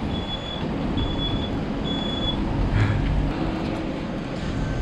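A vehicle's engine running steadily, with a high electronic beep repeating about once a second that stops a little over two seconds in.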